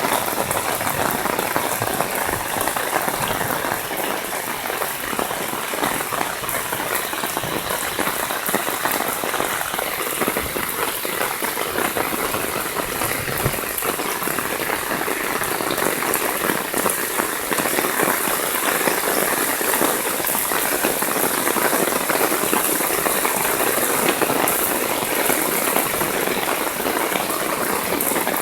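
Heavy downpour: a dense, steady patter of rain with fine crackling drop hits.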